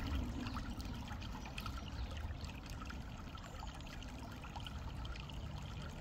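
River water trickling and running steadily.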